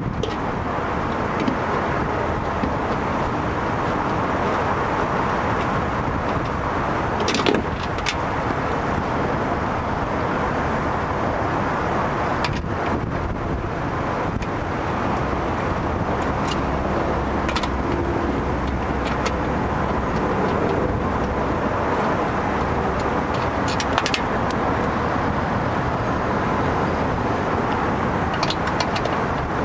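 Steady background noise like road traffic, with a few faint clicks and taps as hands handle the wiring connectors inside the bare car door.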